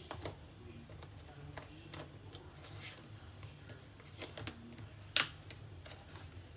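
Scattered light clicks and taps of hands handling a Samsung Galaxy Z Fold 2 Thom Browne Edition box and its packaging tray, with one sharp click about five seconds in, over a low steady hum.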